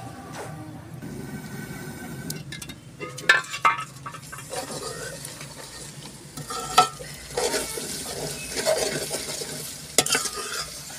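Chicken and spice masala sizzling as it fries in a metal pot over a wood fire, stirred and scraped with a metal ladle, with sharp clinks of the ladle against the pot several times. The sizzle is the masala being roasted (bhuna) after dry spices and yogurt were added.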